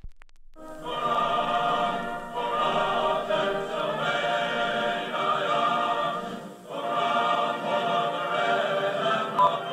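A choir singing, with a thin, narrow sound like an old recording. The singing dips briefly twice.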